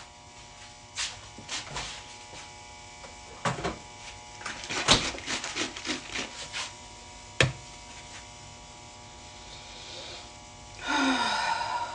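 Scattered light knocks and clicks of things being handled, over a steady electrical hum, with a louder rustling noise about eleven seconds in.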